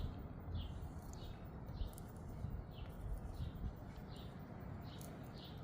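A bird chirping over and over, a short falling chirp about every three quarters of a second, over a steady low rumble.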